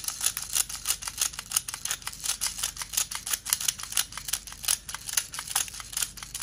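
A BB speed loader being pressed repeatedly into a sand-coloured airsoft PMAG, a rapid run of short plastic clicks, several a second, as 0.20 g BBs are pushed into the magazine.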